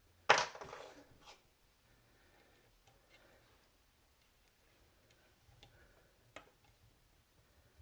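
A sharp metallic clack about a third of a second in as the Abloy 242 padlock is locked back up, followed by faint, scattered clicks and ticks of a homemade disc-detainer pick and tensioner working in the lock.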